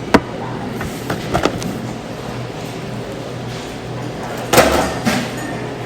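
A single hiccup about four and a half seconds in: a short, sudden gulp over steady background room noise, with a few sharp clicks earlier.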